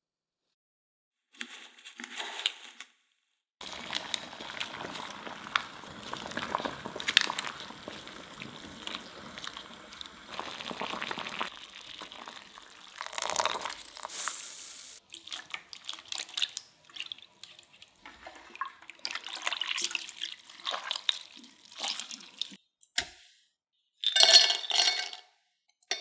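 Water running and splashing over spinach in a glass measuring jug, then ingredients (cashews, spinach, a garlic clove) dropped into the glass jug with scattered clicks. The loudest ringing glassy clinks come near the end.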